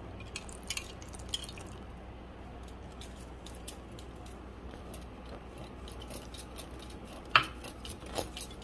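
Pancake batter being mixed in a bowl: soft wet squishing with scattered light clicks, and one sharper knock near the end.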